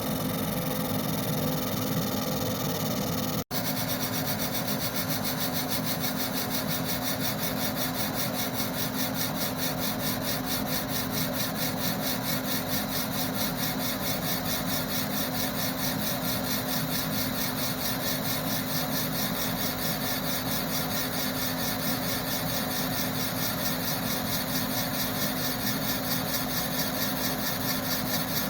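Steady machine noise, a hum under a constant hiss, with a rapid fine pulsing. It cuts out for an instant about three and a half seconds in, then carries on unchanged.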